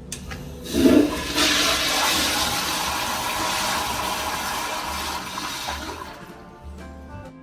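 Kohler Kingston wall-hung toilet flushing: a sudden gush about a second in, then a loud steady rush of water for about five seconds that tapers off near the end.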